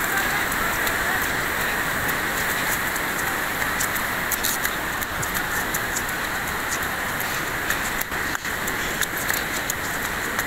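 Swollen flood river rushing past: a steady, even noise of fast, churning muddy water.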